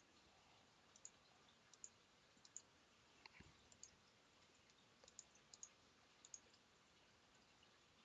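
Faint computer mouse clicks, scattered through near silence, many coming in close pairs.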